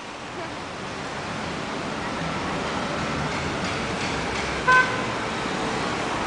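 Steady city street traffic, with one short car horn toot about five seconds in.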